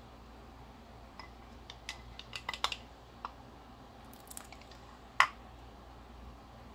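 Kitchenware being handled: a run of light clicks and clinks, then one sharper knock about five seconds in.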